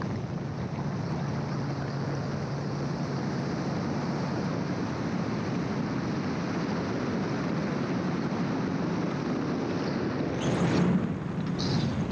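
Gyroplane in flight: a steady drone of its engine and propeller with an even rush of wind noise. About ten seconds in there is a brief louder rush of wind.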